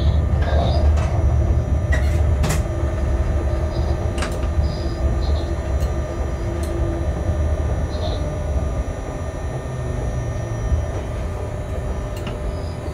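Locomotive cab at low speed: a steady low rumble of the running gear and machinery with a constant hum, and a few sharp clicks.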